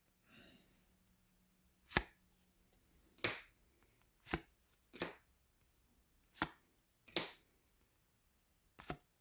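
Football trading cards being gone through one at a time, each card making a short, sharp snap. There are seven snaps at uneven gaps of about a second.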